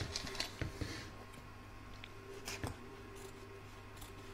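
Faint rustling and light clicks of a plastic machine-embroidery hoop and its stabilizer being handled, mostly in the first second, with another couple of clicks past the middle.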